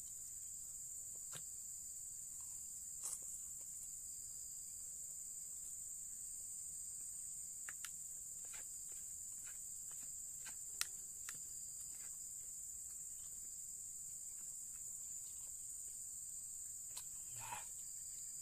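A steady high-pitched insect drone, like crickets, with a few short clicks and scrapes of a fork and spoon against a plastic plate and soft chewing.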